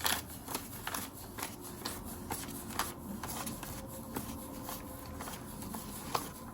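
Paper cash bills being counted and handled: irregular crisp flicks and rustles of banknotes.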